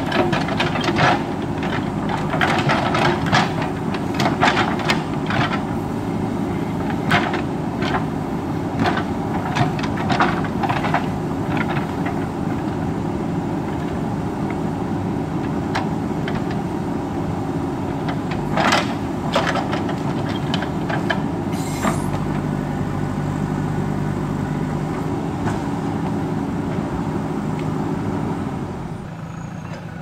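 JCB backhoe loader's diesel engine running under load while the backhoe bucket digs into rocky soil, with frequent sharp knocks of bucket and stones through the first dozen seconds and a few more after. In the last third the engine settles to a steadier hum, then drops to a quieter run about a second before the end.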